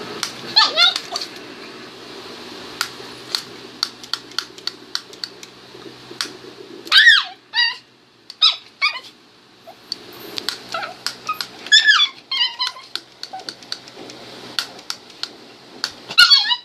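A frightened small female dog giving odd high-pitched squealing cries in about five short bouts, the pitch sliding up and down. Sharp clicks sound between the cries.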